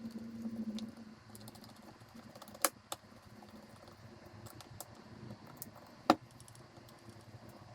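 Small metal carburetor parts and hand tools clicking and tapping as the carburetor is reassembled, with two sharp knocks, one about two and a half seconds in and a louder one about six seconds in.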